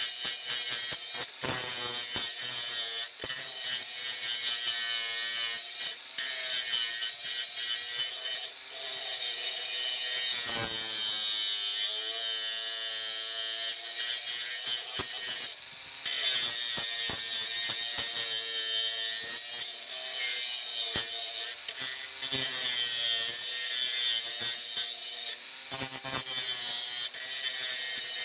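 Bosch GWS 180-Li 18V cordless angle grinder with its 125 mm disc working against material: a harsh, hissing grind over the motor's whine, which sags and recovers under load, broken by a few brief pauses.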